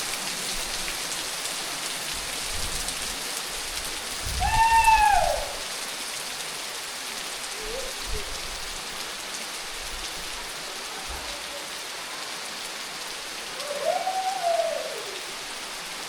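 Steady heavy rain falling, an even hiss. Twice, a short rising-and-falling call rises above it, a loud one about four seconds in and a fainter one near the end.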